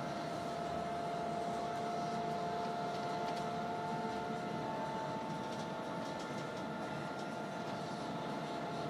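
Interior of a Yutong E12 battery-electric bus at motorway speed: a steady high whine from the electric drive over tyre and road noise. A second, slightly higher whine comes in about three seconds in and creeps up in pitch.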